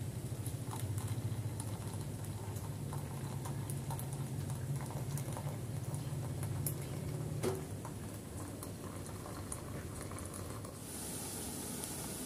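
Tea poured in a steady stream from a small teapot into a glass tea cup. The pour stops about seven and a half seconds in with a small clink, and a steady high hiss starts near the end.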